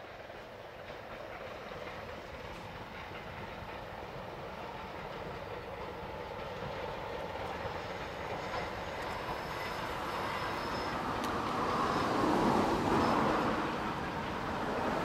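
Diesel-hauled train approaching and running past, growing steadily louder and loudest about twelve seconds in.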